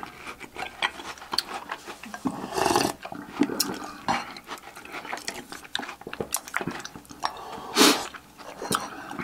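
Wooden spoons clicking and scraping against glass bowls, with close slurping of cereal and milk; near the end a loud slurp as the bowl is tipped up to drink the last of the milk.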